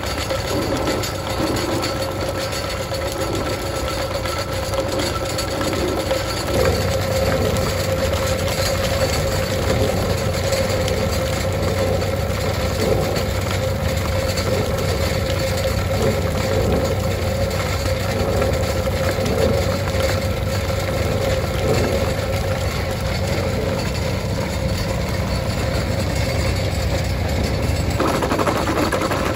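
Ditch Witch AT32 all-terrain directional drill running steadily under load as its rotating drill head bores into a boulder. The low rumble grows louder about six seconds in.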